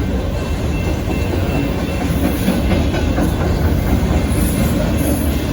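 Union Pacific auto train's autorack cars rolling past: a steady rumble and rattle of wheels on the rails.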